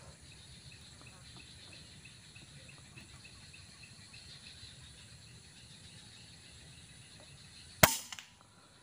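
Faint insect chirping, a quick regular run of short chirps, then a single sharp rifle shot near the end, fired through a telescopic sight.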